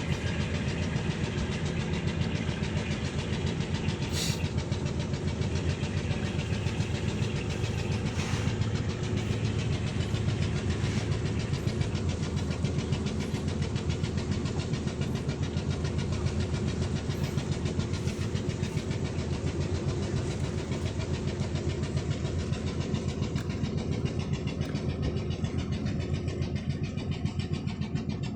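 An engine running steadily at a constant speed, with a fast, even chugging beat.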